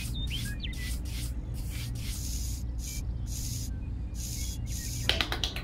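Small hand trowel scraping across fine sand as it is smoothed flat, in a run of short strokes about two a second. A quick burst of clicks comes near the end.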